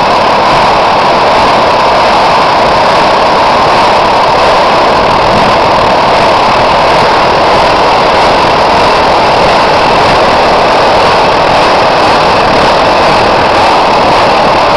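Homemade petrol blow lamp burning steadily, its burner making a loud, even rushing noise.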